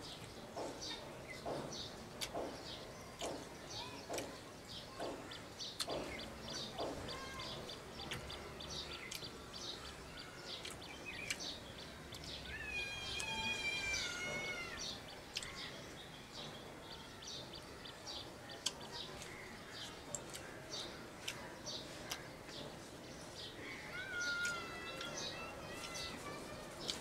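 Small birds chirping repeatedly in short high notes. A longer, falling call stands out about halfway through and again near the end.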